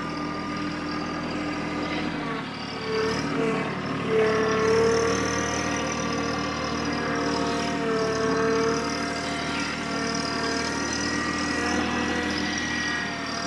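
Engine of a TYM T264 compact tractor, a three-cylinder diesel, running steadily as it pulls a seed planter, with the engine note picking up a couple of seconds in.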